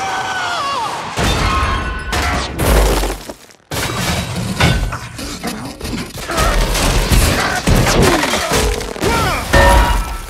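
Film sound of an armoured Iron Man suit crash-landing and tumbling through snow and trees: a long run of heavy thuds, crashes and smashing impacts starting about a second in, with a man's shouts between them.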